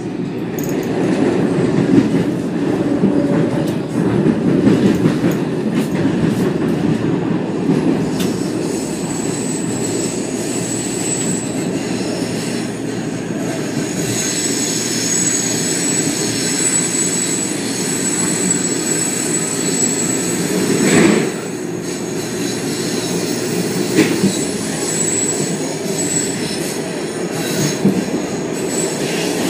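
Running noise heard inside a Washington Metro CAF 5000-series railcar under way: a steady rumble of wheels on rail. A thin high-pitched tone comes in about nine seconds in, and there is a brief louder surge a little past two-thirds of the way through.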